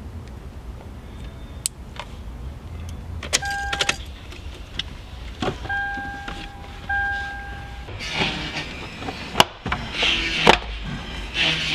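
Clicks and knocks from work on a car, with three steady electronic beeps: a short one, then two of about a second each. Denser rustling and clattering follow near the end, over a low steady hum.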